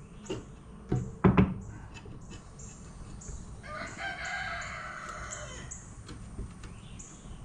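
A few sharp knocks about a second in, then a rooster crows once, for about two seconds.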